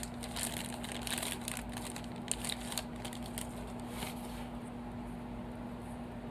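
Packaging crinkling and crackling as it is handled, a run of small crackles for about four seconds that then stops, leaving a faint steady hum.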